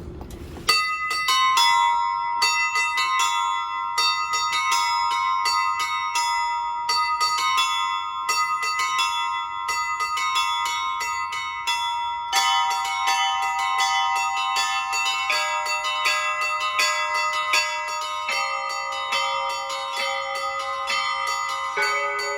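A set of church bells rung by one bell ringer in the Russian style: small high bells chiming in quick repeated strikes, with lower, deeper bells joining in about halfway through and more added near the end.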